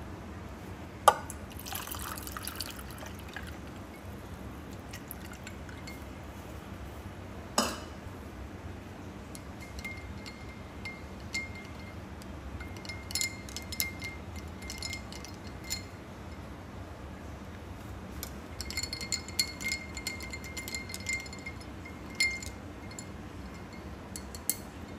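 Ice cubes clinking against a cut-glass tumbler of aam panna, the glass ringing with each clink, in two spells of repeated clinks. A sharper knock of glass comes about a second in and another a few seconds later.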